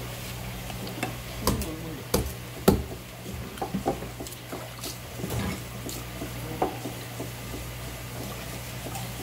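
Kitchen knife knocking and scraping on a wooden cutting board while a raw fish is filleted by hand: a scattering of irregular knocks and clicks, the sharpest a little under three seconds in and a quick cluster around four seconds, over a steady low hum.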